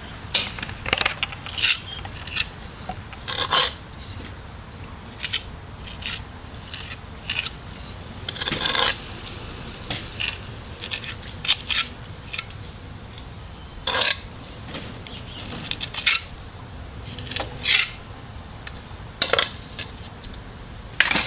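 Tuck-point trowel scraping and tapping: short irregular strokes about once a second as mortar is sliced off a hawk and pressed into brick joints, with a longer scrape near the middle. Crickets chirp steadily in the background.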